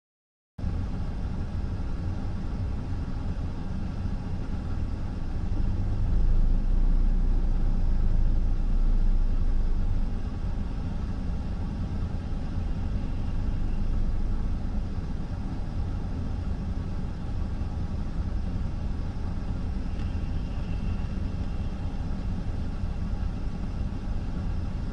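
Steady low rumble of a car idling, heard from inside the cabin, a little louder for a few seconds near the start.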